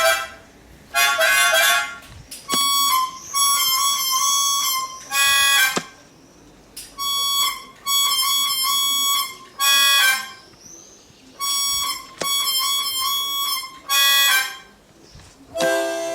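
Harmonica music played in short phrases of about a second each, with quick repeated notes and brief pauses between phrases.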